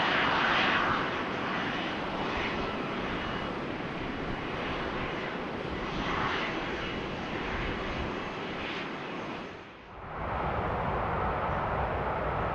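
Rolls-Royce Trent 700 jet engines of an Airbus A330-200 freighter running steadily as it taxis, with a faint whine. About ten seconds in the sound drops away and a different steady outdoor noise takes over.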